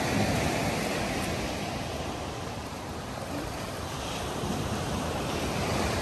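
Ocean surf washing onto the beach in a steady rushing hiss, with wind rumbling on the microphone.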